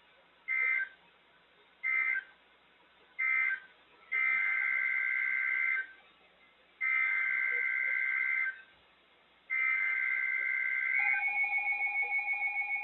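EAS SAME digital data bursts, shrill two-tone warbling: three short end-of-message bursts about a second apart, then three longer header bursts for the next alert. About eleven seconds in, a steady lower tone starts alongside a pulsing high tone, leading into the alert.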